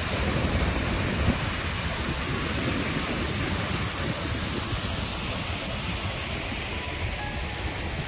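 Steady rush of a tall single-drop waterfall, water pouring over a rock lip and crashing into the gorge below, with an uneven low rumble underneath.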